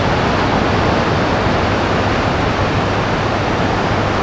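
Ocean surf breaking on the beach, a loud, steady rushing noise.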